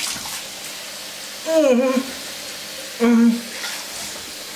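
Tap water running steadily into a bathroom sink, with a man letting out two loud wordless groans over it, the first falling in pitch about a second and a half in, the second about three seconds in, as he rinses the burn of a habanero pepper from his tongue.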